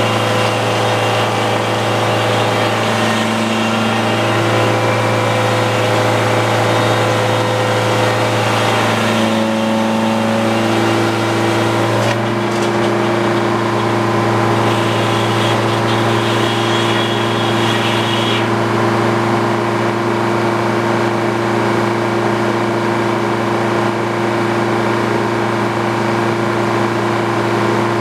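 Sawmill engine running steadily under a constant load, with tones that shift about ten seconds in and a high whine between about fifteen and eighteen seconds in.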